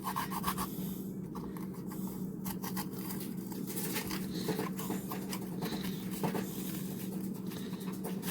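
Knife working through a bell pepper on a cutting board, in soft, scattered clicks and taps, over a steady low hum.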